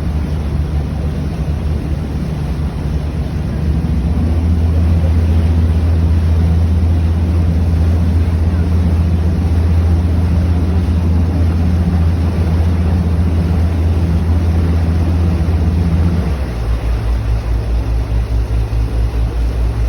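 River tour boat's engine running, a steady low hum that gets louder about four seconds in. Near the end the note drops and turns into an even, fast throb.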